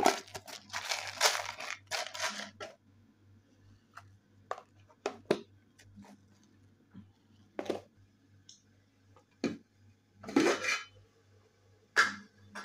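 Cloth rustling against an aluminium pot lid with small metal clinks, then scattered sharp clicks. Near the end comes a brief scraping of a slotted metal spoon in rice in the pot. A faint steady low hum runs underneath.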